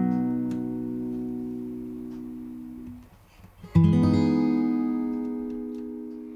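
Acoustic guitar: a chord rings and slowly fades, is damped about three seconds in, and after a short pause a closing chord is struck and left to ring out, fading away.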